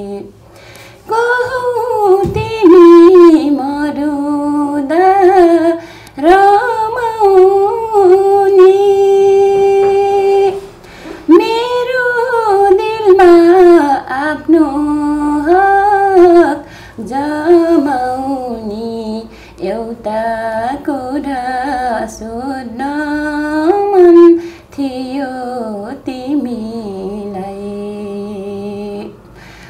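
A woman singing a Nepali song unaccompanied, in long, wavering held phrases with short breaks between them.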